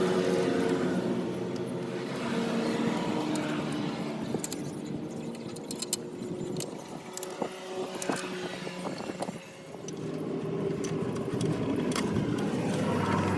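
A vehicle engine running, its pitch shifting now and then, with scattered light metallic clinks and clicks, most of them in the middle of the stretch.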